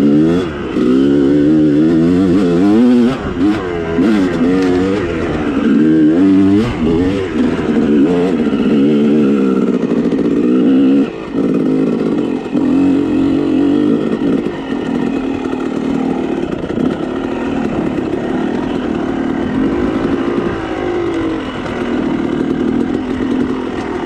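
Dirt bike engine revving up and down repeatedly while riding, the pitch rising and falling quickly over the first several seconds, then running at a steadier pitch with only small rises.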